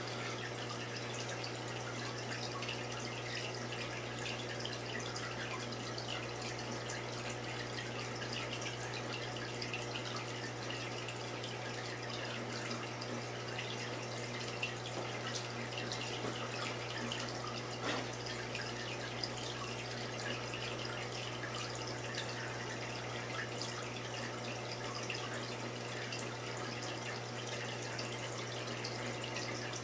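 Saltwater aquarium's water circulation running: steady trickling and dripping water over a constant low hum from the tank's pump and filtration.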